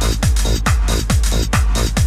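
Electronic dance music with a steady kick drum, about two beats a second, and sharp high percussion between the beats.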